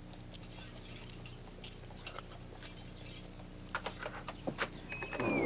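Scattered light clicks and knocks, with a few sharper ones about four seconds in, then a cat starts a drawn-out meow near the end.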